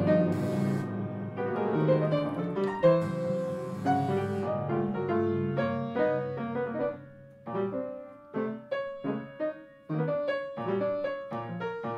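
Free-jazz piano music: dense sustained chords at first, then from about halfway short, separate staccato notes and brief clusters with gaps between them.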